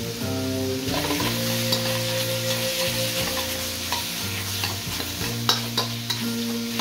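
Food sizzling and frying in a hot pan while being stirred, with a few sharp clicks of the utensil against the pan a little past halfway.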